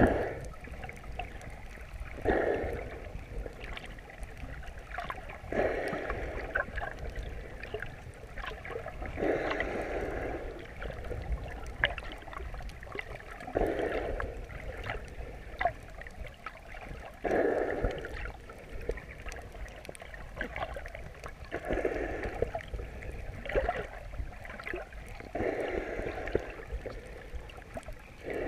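Breathing of a swimmer wearing an underwater camera, heard muffled through the water: a breath about every four seconds with a gurgling quality, over a steady low rumble and faint scattered clicks.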